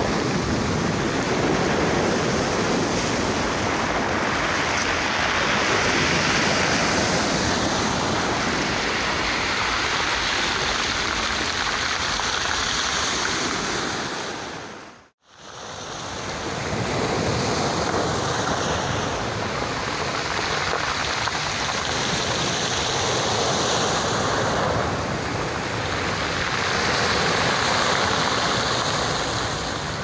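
Sea surf breaking and washing up a pebble beach, in slow swells that rise and ease every few seconds. About halfway through, the sound fades out to silence and fades back in.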